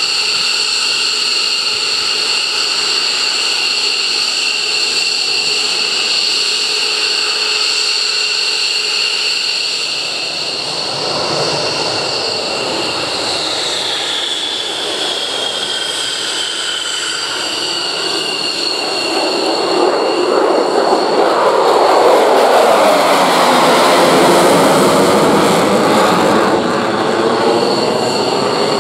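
F-15DJ Eagle fighters' twin Pratt & Whitney F100 turbofans idling as the jets taxi: a steady high-pitched whine, with one tone gliding down in pitch partway through. In the last third a louder, rushing jet noise builds as an aircraft rolls close past, then eases off near the end.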